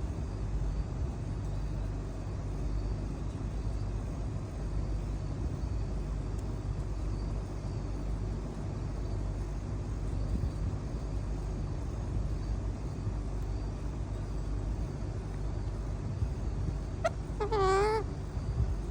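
Steady low background rumble, then near the end a pet parrot gives one short call that bends up and down in pitch.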